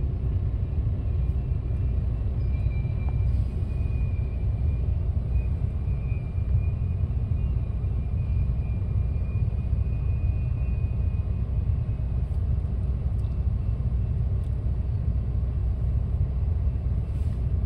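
Steady low rumble of road and engine noise inside a moving car's cabin, with a faint thin high tone that fades out about two-thirds of the way through.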